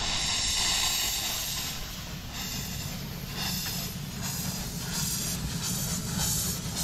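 Steam hissing from a 7¼-inch gauge live-steam miniature locomotive as it vents steam, loudest in the first couple of seconds and then settling to a steadier hiss.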